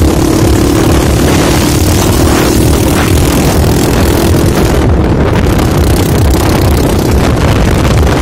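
Loud, steady wind rumble on the microphone with the running engine of a moving motorcycle; a low steady hum fades out about halfway through.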